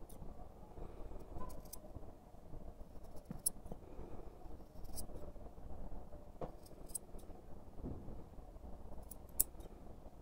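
Curved grooming scissors snipping a poodle's curly facial fur: short, sharp metal snips every second or two, some in quick pairs, over a faint low rumble.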